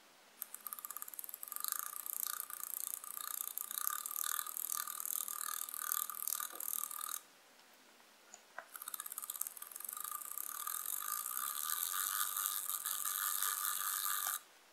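Miniature stepper-motor steering mechanism of a 1/87 scale RC car: its tiny gears and lead screw whir and rattle as they drive the front wheels left and right, with a regular pulse about twice a second. It runs in two long stretches, stopping for a second or so about seven seconds in.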